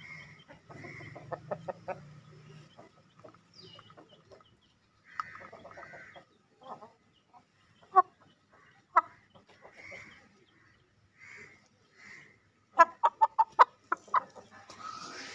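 Gamecock roosters clucking softly at close range, short low calls coming every second or so, with a sharp tap about eight and nine seconds in and a quick run of sharp taps near the end.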